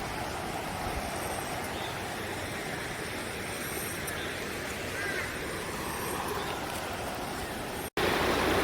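Steady rush of a mountain stream running high and fast, swollen by a night of rain. It cuts out for an instant near the end.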